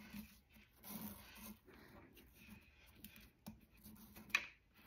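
Faint rustling of a white cord slid and rubbed between fingers while a one-handed knot is tied, with small ticks and one sharp click a little past four seconds in.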